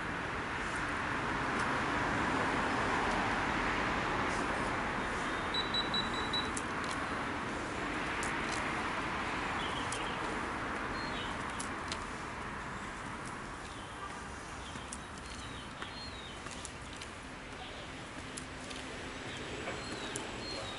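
Outdoor city ambience: a steady wash of traffic noise that swells and then slowly fades, with short high bird chirps now and then, including a quick run of notes about six seconds in.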